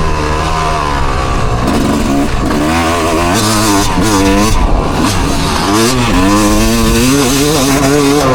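Engine revving loudly, its pitch rising and falling again and again.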